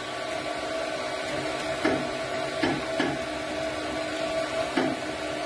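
MakerBot Replicator 2 extruder stepper motor running steadily as it drives PLA filament during loading, a steady whine with a few short knocks from the extruder. The drive gear is still gripping the filament hard enough that pinching fingers cannot stop it.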